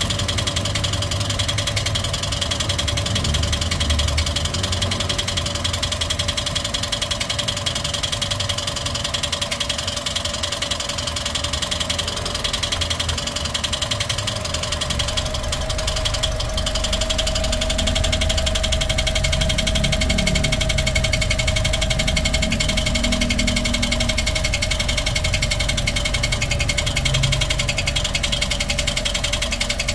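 Toyota 1NR-FE 1.3-litre four-cylinder engine running steadily with an abnormal mechanical noise. The mechanic ties this noise to dirty roller cam followers and a clogged oil strainer.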